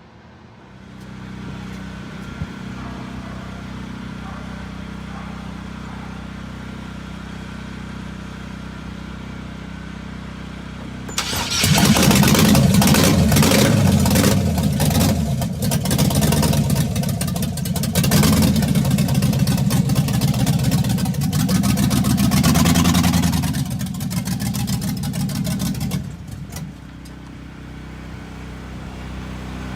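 An engine running steadily. About eleven seconds in, a much louder, hissing rush joins it for about fifteen seconds, then it drops back to the steady running.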